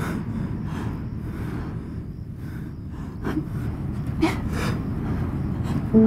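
Short, strained gasps for breath from an injured woman, a couple of them about three and four seconds in, over a low steady rumble.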